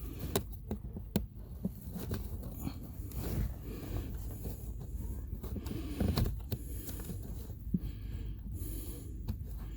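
Scattered sharp clicks and scrapes of hands working plastic trim clips and the cabin air filter cover behind a car's glove box, with a man breathing heavily as he reaches in.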